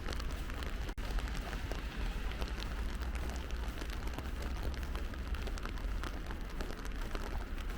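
Steady rain, the patter of many small drops, over a constant low rumble. The sound breaks off for an instant about a second in.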